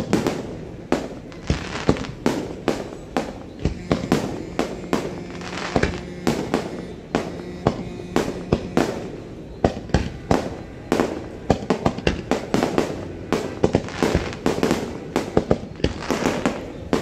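Aerial fireworks shells bursting in quick succession: a rapid, uneven series of sharp bangs, about two or three a second, each trailing off in an echo.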